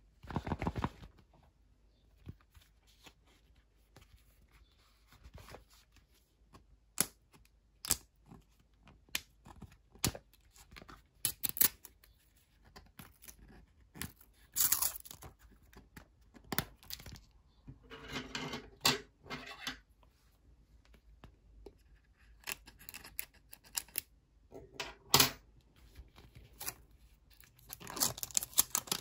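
Plastic packaging of a Rainbocorns Puppycorn Surprise toy capsule being handled and peeled open by hand: scattered clicks and crinkles, with a few longer tearing stretches, the densest near the end as the paper seal comes away.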